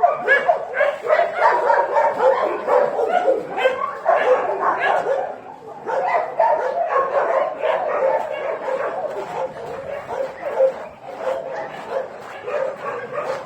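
A group of dogs barking and yipping over one another without pause, with a brief lull about five and a half seconds in.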